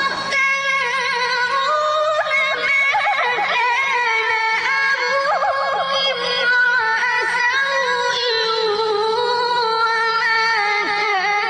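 A high, melismatic chanting voice holding long, wavering, ornamented phrases that slide up and down in pitch, over a steady low hum.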